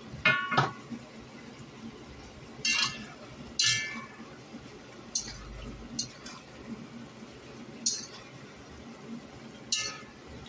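Slotted metal spatula clinking and scraping against a wok as chicken and radish chunks are stirred, with about eight sharp, ringing clinks at uneven intervals over a steady low hiss.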